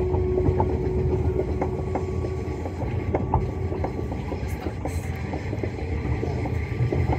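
Cabin noise inside an Öresundståg electric passenger train under way: a steady low rumble of wheels on rails, with scattered sharp clicks from the wheels. A steady hum fades out about two and a half seconds in.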